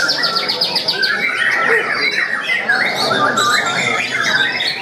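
White-rumped shamas (murai batu) singing in their cages, several at once. A fast trill of repeated high notes opens, followed by a dense mix of varied whistled and chattering phrases.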